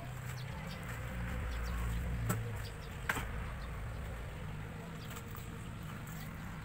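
Low buzzing of an insect flying close by, loudest a couple of seconds in, with two sharp snaps a little under a second apart, about two and three seconds in.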